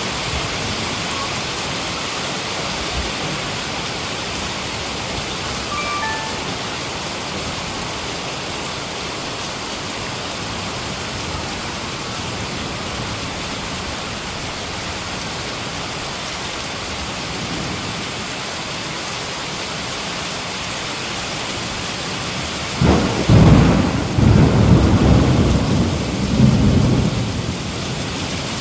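Heavy rain falling steadily, then a loud roll of thunder rumbling in about four-fifths of the way through and carrying on to the end.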